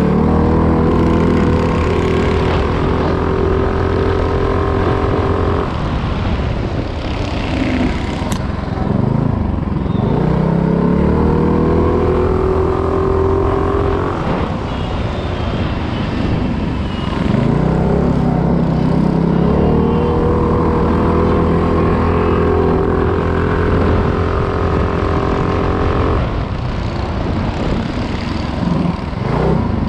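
A minibike's small single-cylinder engine running hard at high, steady revs. Three times the revs fall away and then climb back up, as the throttle is eased off and reopened.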